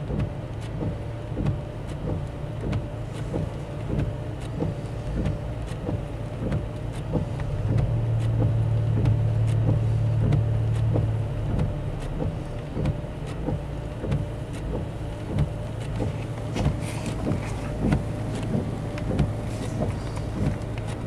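Cabin sound of a Toyota FJ Cruiser's 4.0-litre V6 running low and steady while driving on snow-covered roads, swelling a little for a few seconds about eight seconds in. Regular faint ticks run through it.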